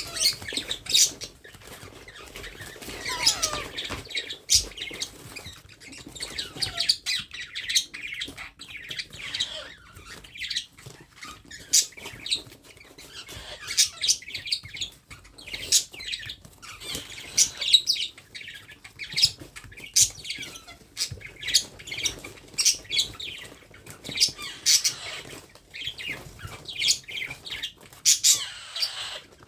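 Baby parrot chirping and squawking over and over, a steady run of short, high-pitched, irregular calls.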